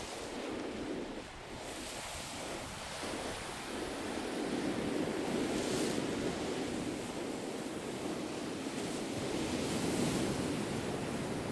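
Ocean waves breaking and washing onto the shore, with wind on the microphone. The surf is softer at first and swells up after a few seconds.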